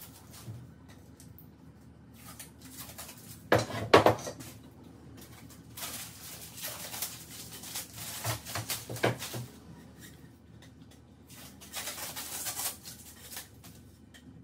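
Bamboo tubes and hand tools handled on a wooden workbench: a brief clatter of knocks about four seconds in, then stretches of scraping and rustling.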